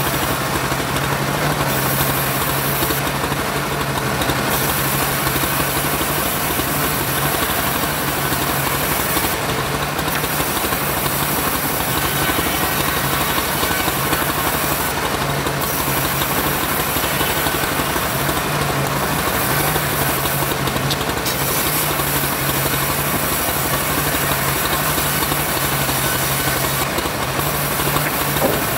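Homemade bandsaw running steadily as it saws sengon wood. Its drive makes a constant mechanical drone, with short bursts of high hiss every few seconds.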